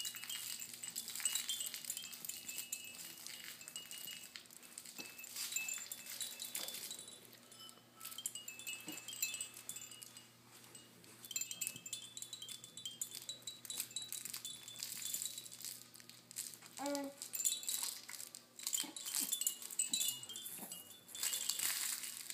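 Hanging plush toys on a baby's activity gym jingling and rattling as the baby grabs and shakes them, with small chimes ringing again and again. A short baby coo rises about three-quarters of the way through.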